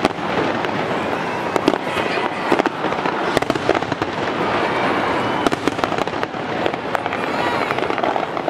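Fireworks display: a rapid, unbroken string of bangs and crackles.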